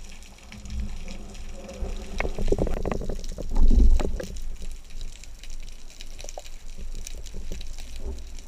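Water splashing and bubbling around a spearfisher and the speared fish at the surface, heard through an underwater camera, with crackling bubbles and a loud burst of splashing about three and a half seconds in.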